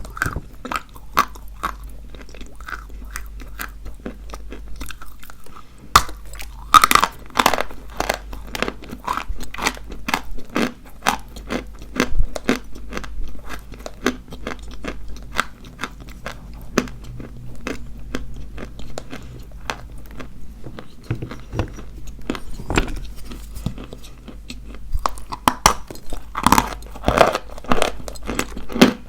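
Dry white chalk being bitten and chewed, a steady stream of crisp crunches and crackles, with louder bites about six seconds in and again near the end.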